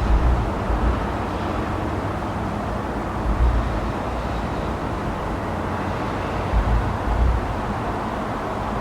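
Distant fireworks salute booms, heard only as a few low thuds, over a steady wash of city traffic noise.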